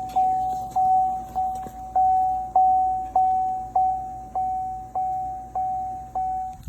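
Car warning chime dinging steadily, one mid-pitched tone repeating a little under twice a second.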